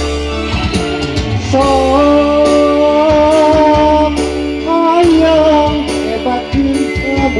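Live Sundanese pop (pop Sunda) band music: a man sings through a microphone over an amplified band of electric guitar, keyboard and kendang drums. From about a second and a half in, the voice holds long, wavering notes over a steady bass line and regular drum hits.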